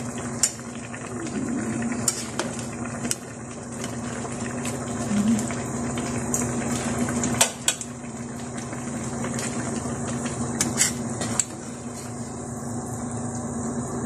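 Metal tongs clinking against a pot, about seven sharp clicks, while stew bubbles in the pot, over a steady low hum.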